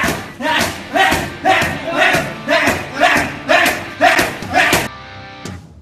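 Boxing-gloved punches landing on a bare torso about twice a second, each one with a loud shout. The punches and shouts stop shortly before the end.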